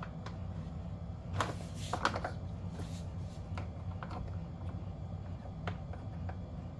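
Light clicks and taps of plastic HVAC housing parts being handled and fitted together, a scattered handful clustered in the first few seconds with a few more later, over a steady low hum.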